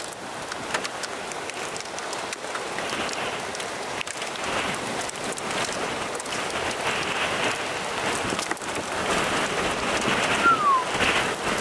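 Steady rain falling, with many small drop ticks over an even hiss. A brief falling tone sounds near the end.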